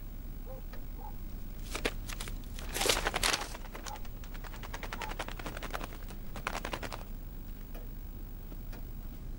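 A female Barrow's goldeneye's feet tapping and clicking as it walks on a slippery tabletop and a hard floor, in several short runs of quick clicks.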